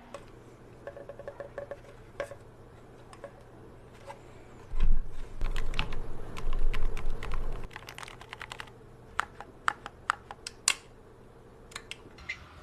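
Typing on a OnePlus keyboard: a few light key clicks, then a loud, fast run of typing lasting about three seconds, then slower single key presses.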